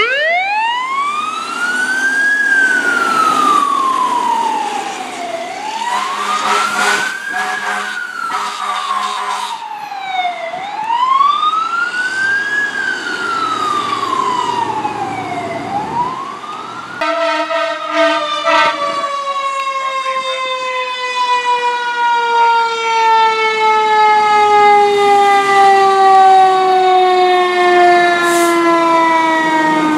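Fire engine siren wailing, rising and falling about every five seconds, with several short horn blasts in the middle of it. Then a second fire engine's siren with a single long, slowly falling whine as it winds down.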